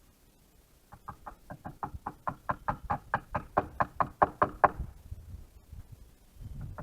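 A quick run of about twenty sharp knocks, around five a second, growing louder and stopping about five seconds in; another run starts near the end.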